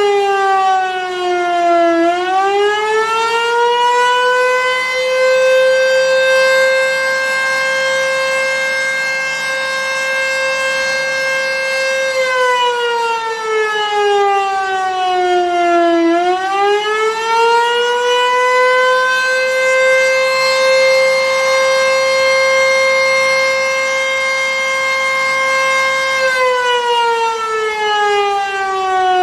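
Sentry 14V-B outdoor warning siren sounding the Attack signal in a test. Its single tone climbs, holds high for several seconds, then falls. The cycle repeats about every 14 seconds, twice here.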